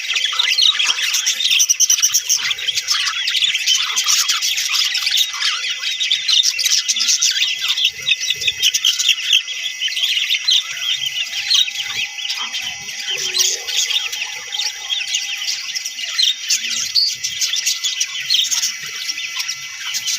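Budgerigars chirping and chattering nonstop, many short calls overlapping at once.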